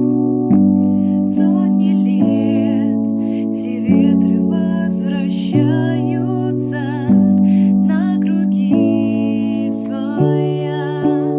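Music: keyboard chords that change about every second and a half, with a wavering melody line above them.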